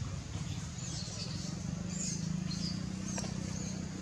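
A handful of short high-pitched animal chirps in the second and third seconds, over a steady low engine-like hum.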